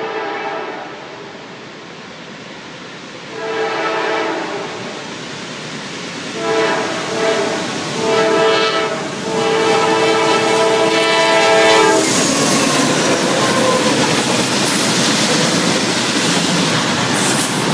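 Norfolk Southern locomotive's multi-note air horn sounding a series of blasts for a horn show: a short blast about three and a half seconds in, two close together around seven to nine seconds, and a longer one that cuts off about twelve seconds in. After that comes the loud, steady rumble and clatter of the train passing close by.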